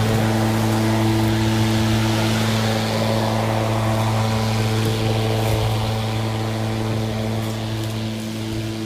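EGO 56V battery-powered lawn mower running steadily under load: a constant motor-and-blade hum with a rushing haze of grass being cut, easing off slightly near the end.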